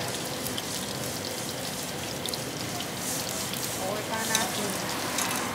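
Beaten egg frying in hot oil in a wok: a steady sizzle with scattered crackling pops.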